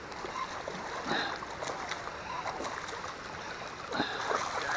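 Water splashing and sloshing as a hooked walleye is reeled in close and thrashes at the surface, swelling about a second in and again near the end, with a few faint clicks.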